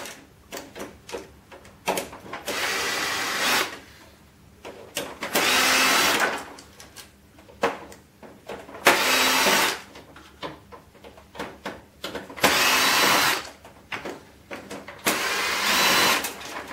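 Power drill-driver running in five short bursts of about a second each, backing screws out of a photocopier's steel and plastic frame. Small clicks and knocks of handling come between the bursts.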